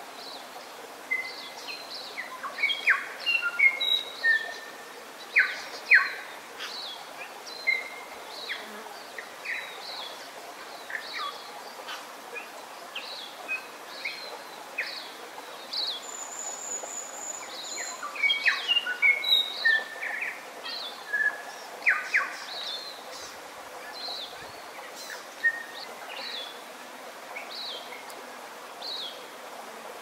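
Forest birdsong: a run of short chirps and whistled notes, some sliding in pitch, busiest in two spells, with a brief high trill midway, over a steady background hiss.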